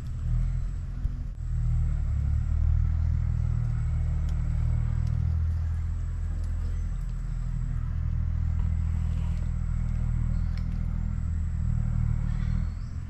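Low, steady drone of an engine or motor running.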